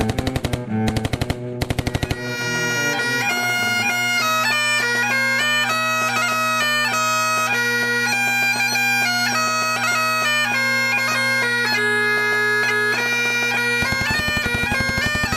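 Three short bursts of rapid machine-gun fire, then a bagpipe tune over a steady drone, with more rapid gunfire under the pipes near the end.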